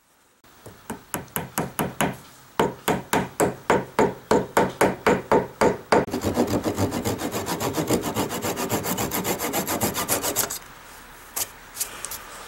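A metal hammer drives a small glued maple wedge into a gap in a maple table foot: a run of sharp blows at about four a second, with a brief pause about two seconds in. From about six seconds in, a thin handsaw cuts the wedge flush with fast, even strokes that stop about ten and a half seconds in, followed by a few scattered knocks.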